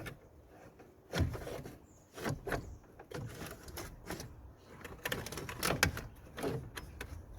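A 2007 Vauxhall Astra radiator cooling fan assembly being slid and worked into its lower mounting slots. It makes irregular scrapes, clicks and knocks, in clusters about a second in, around two and a half seconds, and between five and six seconds.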